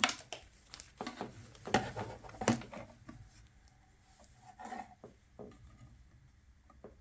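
Small clicks, taps and rubbing as hands work on an amplifier circuit board and its wiring while setting up a multimeter measurement. There are a few sharp clicks in the first three seconds, then only faint handling noise.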